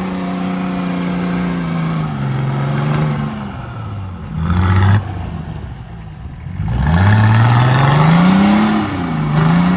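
BMW M57 3.0 straight-six turbodiesel in a Nissan Patrol Y61 working through mud: the engine is held under load, sags, surges briefly and cuts off abruptly, then revs up hard from about two thirds of the way in before easing off near the end.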